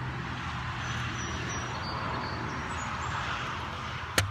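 Steady hiss with a low drone, then near the end a single sharp metallic click as the M1 Carbine is handled.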